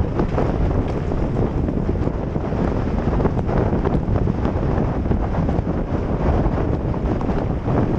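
Wind buffeting the mountain bike's camera microphone at speed, over the rumble of knobby tyres on a dirt trail and small rattles and knocks from the bike.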